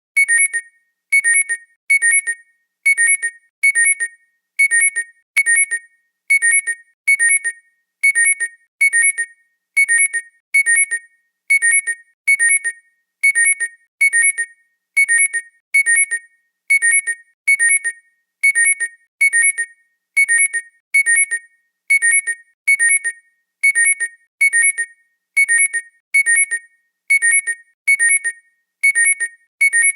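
Phone alarm ringtone: a short pair of high-pitched electronic notes repeated at an even pace, roughly once a second, as a looping alarm pattern.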